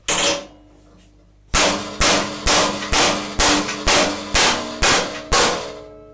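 Hammer blows on the mower's steel chassis, ringing metallically: one strike, then a run of nine steady strikes about two a second, breaking off the remains of ground-down welds and straightening the steel.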